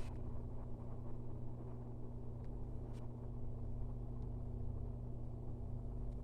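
A steady low hum with a constant tone, with a few faint clicks a few seconds in.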